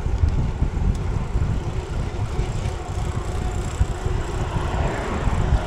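Steady rush of wind buffeting a handlebar-mounted camera's microphone while riding a bicycle, mixed with the hiss of road traffic on the dual carriageway alongside.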